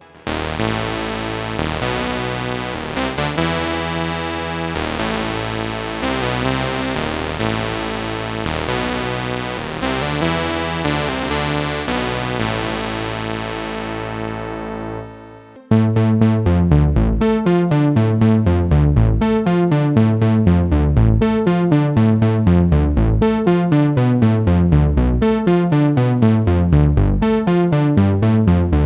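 Roland PROMARS Plug-Out software synthesizer playing two preset patches. First comes a sustained, bright chordal patch whose top end darkens as it fades out about fifteen seconds in. Then a fast, rhythmic sequence of plucked low notes starts at once.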